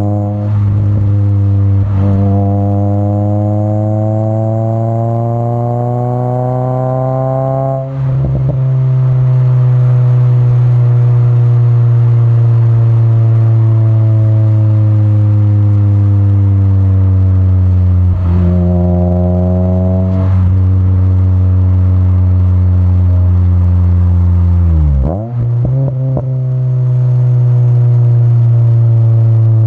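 Acura RSX's K20A3 four-cylinder heard at the tip of an HKS Hi Power exhaust with a test pipe in place of the catalytic converter, while driving. The note climbs steadily for about eight seconds, drops sharply in pitch at an upshift, then drones on with the pitch slowly sagging. It breaks again at shifts about two-thirds of the way through, and dips sharply as the throttle lifts near the end before settling back into a steady cruise.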